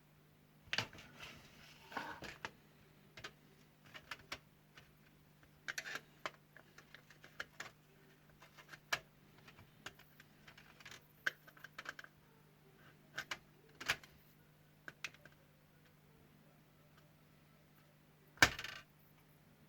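Clicks and light knocks of the parts of an LED ceiling light being handled and fitted back together, coming irregularly, with one louder knock near the end.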